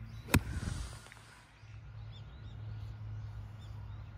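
A golf club strikes the ball once with a sharp crack about a third of a second in, on a fairway second shot. Birds chirp faintly afterwards.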